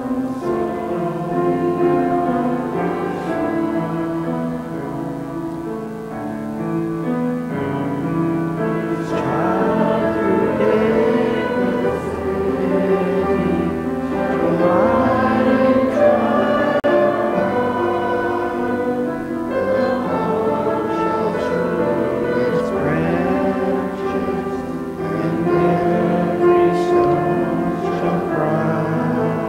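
A congregation singing a hymn together, accompanied by a grand piano.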